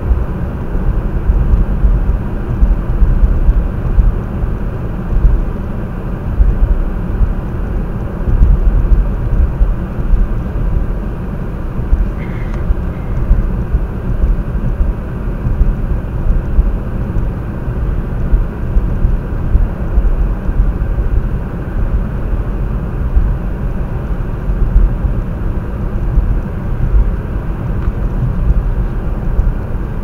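Steady low road and engine rumble of a car driving on a snow-covered road, heard from inside the cabin.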